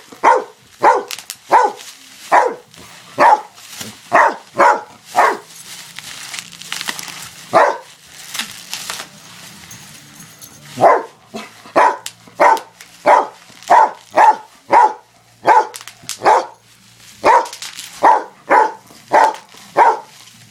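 Dog barking over and over in short, sharp barks, about one to two a second, with a pause of a few seconds near the middle. The dog is barking at bubble wrap, which it hates.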